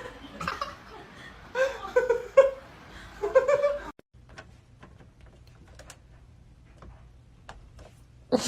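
A person giggling and laughing in short bursts, stopping abruptly about halfway through. After that comes a quiet stretch with scattered faint ticks.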